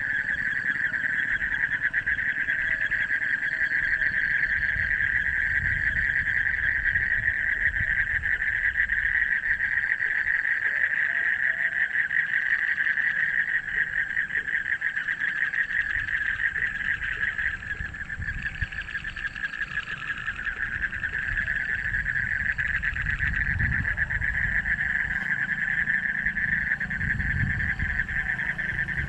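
A chorus of frogs calling: many voices merging into one continuous, rapidly pulsing trill, with a low rumble underneath.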